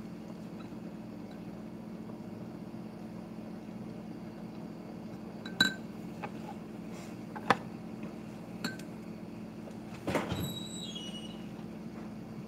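A steady low hum, with a few sharp clinks of metal or glass about halfway through, then a brief scrape with a falling squeak near the end.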